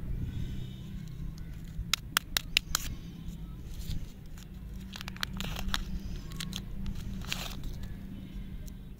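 Paper lollipop wrapper being torn and unwrapped by hand: a run of sharp crinkles about two seconds in, then rustling tears around five and seven seconds in, over a steady low rumble.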